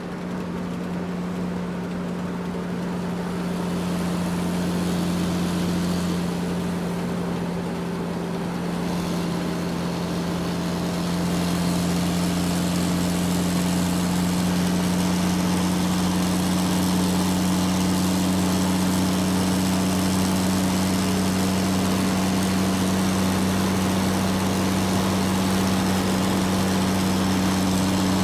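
Large truck engine running steadily as it drives, a low steady drone that grows louder over the first few seconds and then holds.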